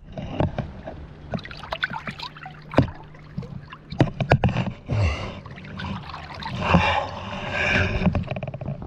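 Knocks and rustles of handling at the side of an inflatable boat, then water splashing and trickling as a hand dips into the river to release a small fish, with the splashing loudest about five seconds in and again near the end.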